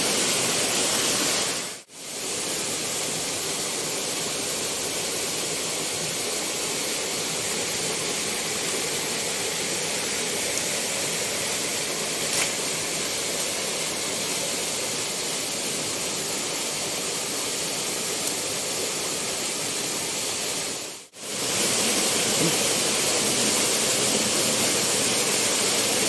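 Steady rush of water falling from a waterfall about 20 metres high, an even hiss with no distinct events. It twice drops briefly to silence, about two seconds in and again about five seconds before the end.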